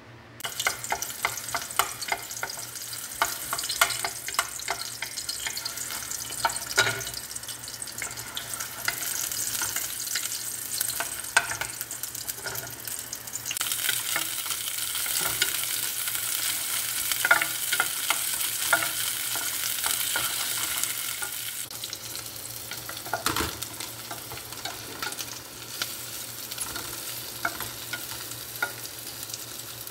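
Sliced onions frying in hot oil in an aluminium pot, sizzling, with a wooden spatula scraping and clicking against the pot as they are stirred. The sizzle starts suddenly just after the start, grows louder about halfway through, and eases off in the last third.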